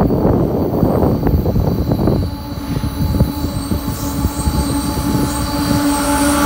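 Three CSX GE diesel locomotives approaching at the head of a freight train, their engines running with a steady hum that grows louder toward the end. A rough, gusty rumble fills the first two seconds.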